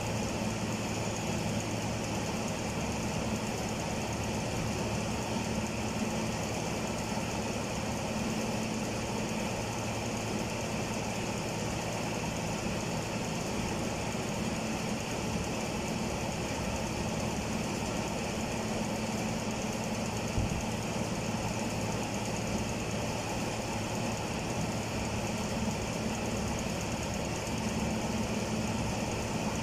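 Steady mechanical drone of a machine or motor running at an even pace, with one short knock about twenty seconds in.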